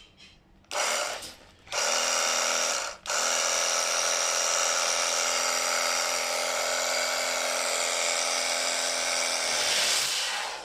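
Battery-powered portable pressure washer's motor and pump running with a steady whine: two short bursts as the trigger is pressed, then a long continuous run that stops near the end.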